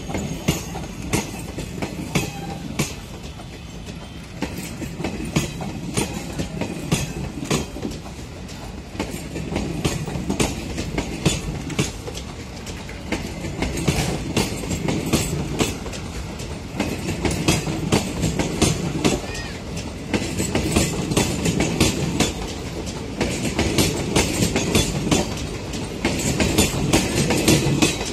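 Indian Railways passenger coaches rolling past as the train departs, their wheels clattering over the rail joints with a steady run of sharp clicks over a low rumble. The clatter grows gradually louder as the train picks up speed.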